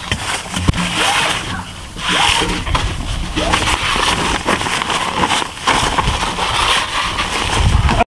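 Crinkling and rustling of plastic ground sheeting under someone crawling on hands and knees, with many small crackles.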